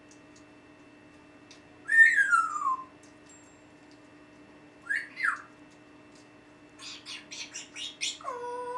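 African grey parrot whistling and calling: a loud whistle falling in pitch about two seconds in, a shorter rising-then-falling whistle a few seconds later, then a quick run of short raspy chirps that ends in a two-note whistle.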